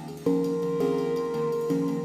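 Background music: gentle instrumental with plucked notes changing every half second or so.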